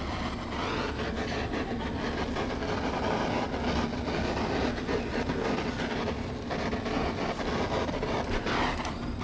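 Food sizzling steadily on a hot teppanyaki griddle, with metal spatulas clicking and scraping on the iron plate.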